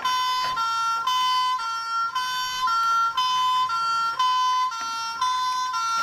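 Electronic two-tone siren of a toy fire engine, a buzzy high and low note alternating about twice a second.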